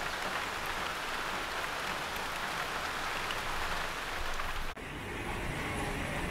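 Steady hiss of falling, splashing water, with an abrupt break about three-quarters of the way through before it goes on.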